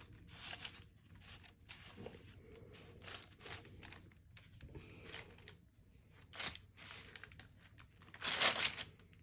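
Irregular small crackles and rustles of hands shaping and setting down a large, sticky no-bake bird's nest cookie, with a louder rustle near the end.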